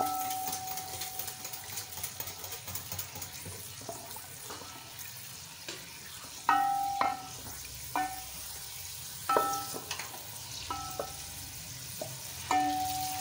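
Sliced onions sizzling in hot ghee in a metal pot, stirred with a wooden spoon. From about halfway through, the spoon knocks against the pot about six times, and each knock rings briefly.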